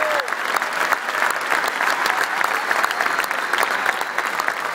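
Large arena crowd applauding: dense, steady clapping from many hands.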